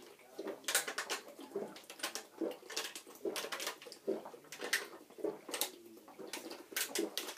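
Two people chugging water from plastic bottles: a rapid series of gulps and glugs, one or two a second, as the water pours from the upturned bottles.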